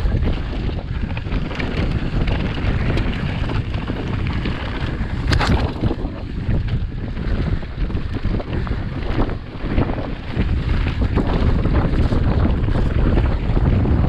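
Heavy wind buffeting on the camera microphone of a mountain bike descending fast over dirt and loose stones, with the tyres crunching and the bike rattling and knocking over the rough ground. A sharper knock comes about five seconds in.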